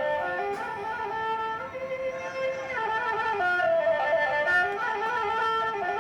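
Instrumental background music: one sustained melody line moving up and down in steps, with a second lower part.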